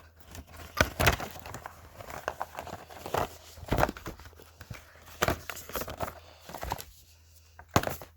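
Plastic packaging being handled and crinkled while an earphone box is unpacked: irregular rustles and sharp clicks, dying down about seven seconds in, with one last click near the end.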